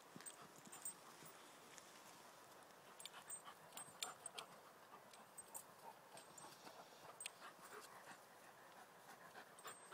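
Faint sounds of a young German Shepherd and an English Springer Spaniel puppy playing: panting and scattered short clicks and taps.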